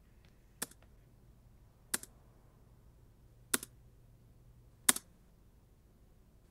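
Four short, sharp clicks about a second and a half apart, each followed by a faint second tick, with a louder hit starting right at the end, over a faint low hum.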